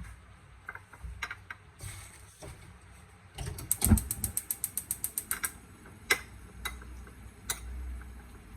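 A rapid ratchet-like run of sharp mechanical clicks, about a dozen in two seconds, with a heavier knock near its start, followed by a few scattered clicks and knocks of kitchen handling.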